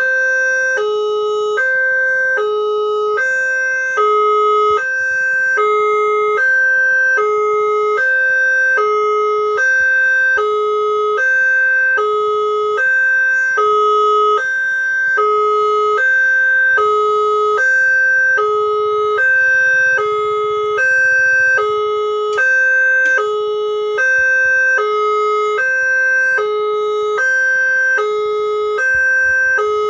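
Railway level-crossing warning siren, a Multec TC siren module played through a horn loudspeaker, alternating steadily between a higher and a lower tone at about one and a half seconds per high-low cycle.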